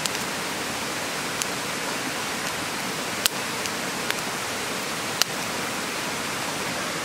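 Beef cooking on a wire grill over charcoal: a steady hiss, with about five sharp crackling pops from the charcoal at irregular intervals. The cook suspects the damp air after rain makes this charcoal pop so much.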